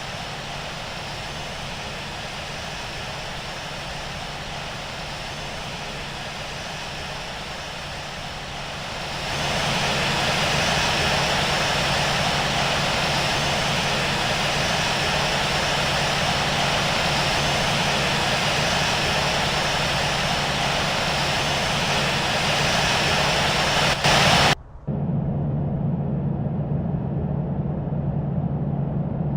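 Airbus A380 jet engines, a steady loud rushing noise with a low hum, growing louder about nine seconds in. Near the end it breaks off abruptly and continues as a duller, lower hum.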